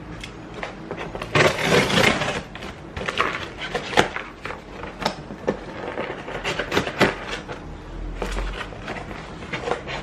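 Scissors slitting open a cardboard box: a burst of scraping and tearing about a second in, followed by scattered knocks, clicks and rustles of cardboard as the box is handled.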